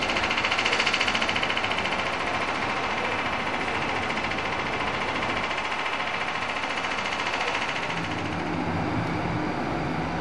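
Diesel multiple unit's engine running as the train pulls away, with a fast, even pulsing clatter that is loudest at first and fades as the train draws off. Near the end a lower, steady engine hum takes over.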